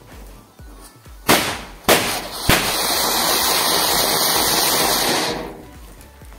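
Three sharp cracks about half a second apart. Then a Diwali anar (flower pot) fountain hisses loudly as it sprays sparks for about three seconds before dying away.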